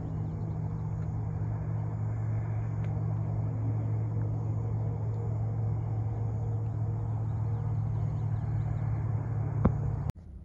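A steady low hum with a rumbling hiss underneath, with one sharp click near the end. The hum cuts off suddenly just before the end.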